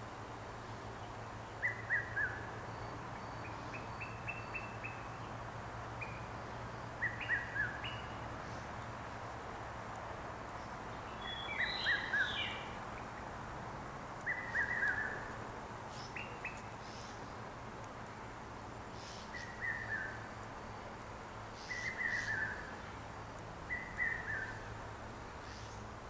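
Birds calling at dusk: a short phrase of a few quick notes falling in pitch, repeated every two to three seconds, with a few other brief chirps. A steady low hum runs underneath.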